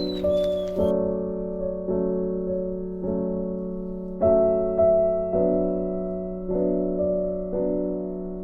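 Background music: soft piano chords, struck about once a second and dying away between strikes.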